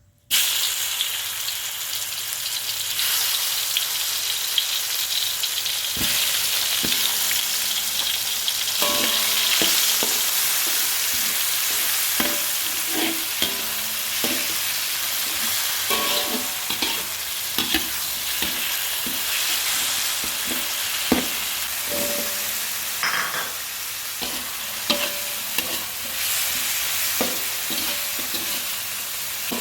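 Food sizzling steadily in hot oil in a pan, with frequent short knocks and scrapes of a utensil stirring it.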